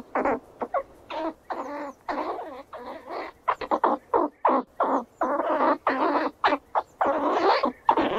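Squirrel chattering: rapid runs of short calls and squeaks, several a second, broken by brief pauses.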